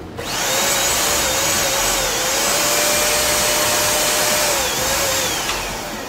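Portable canister vacuum cleaner switched on, running loudly with a steady whine over the rush of air, then switched off and winding down near the end.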